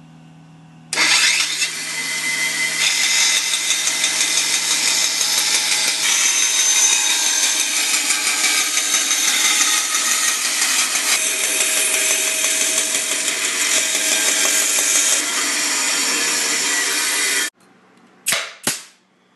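A power tool running loudly and steadily for about sixteen seconds, then switching off abruptly. Two short, sharp sounds follow close together near the end.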